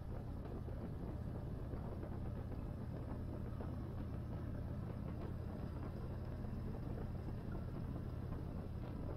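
Yamaha Raider 1850's V-twin engine running steadily at an even cruising pace, with no revving or gear changes, heard from the rider's seat.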